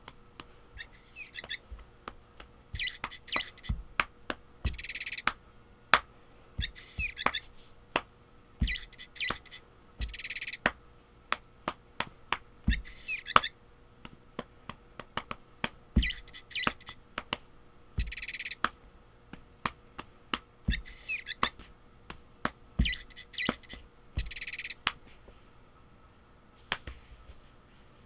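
Feathered bird cat toy chirping: the same short bird-like call repeats every one to two seconds, with many sharp clicks in between.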